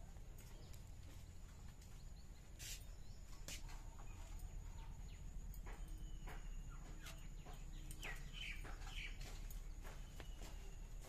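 Faint scattered clicks and small knocks of garlic cloves being peeled by hand and cut on a boti's upright blade, with a few short bird chirps a little past the middle.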